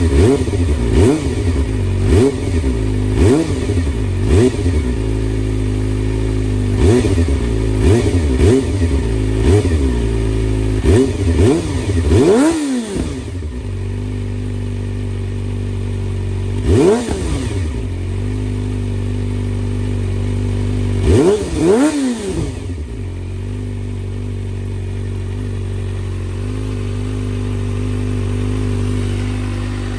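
Kawasaki ZX-25R's 250 cc inline-four idling through a Yoshimura R-77 full exhaust, blipped with a quick series of short throttle revs in the first half. It then gets a few single revs, a double about two-thirds in, before settling back to a steady idle.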